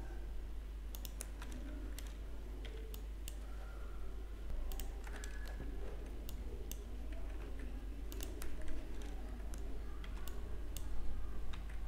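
Computer keyboard keystrokes and mouse clicks, scattered and irregular, over a steady low hum.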